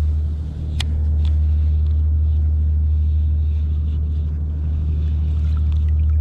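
A steady low drone of a running engine, with a couple of light clicks about a second in.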